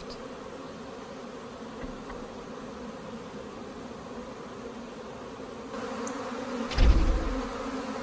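A returning honey bee swarm buzzing in flight around its cluster at the hive entrance: a steady hum of many wingbeats. A brief low thump about seven seconds in.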